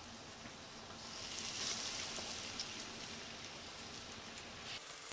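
Pieces of breaded largemouth bass fillet deep-frying in a pot of hot oil: a steady sizzle with scattered crackles, growing louder about a second in.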